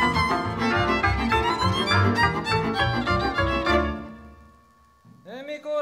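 Hungarian folk band led by a fiddle, with a bass pulse beneath, playing a dance tune that stops about four seconds in. Just before the end a single voice begins a held sung note, sliding up into it.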